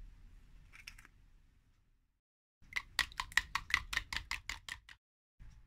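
Eggs being beaten with a plastic fork in a plastic jug: a fast run of sharp clicks, about six a second, as the fork strikes the jug's sides for about two seconds.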